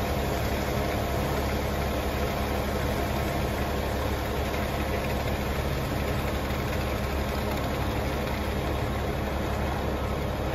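Concrete mixer truck's diesel engine running steadily during a pour, with an even low hum.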